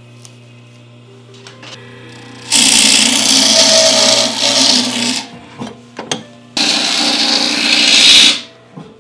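Small electric spindle motor running twice, each time for about two seconds, spinning a bamboo fishing rod section held in its chuck while the rod turns in the craftsman's grip, with a few light knocks between the runs.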